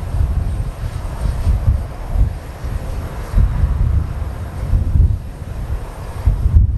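Boeing 767-300ER's jet engines running as a steady rumble and hiss, with wind buffeting the microphone in uneven low gusts.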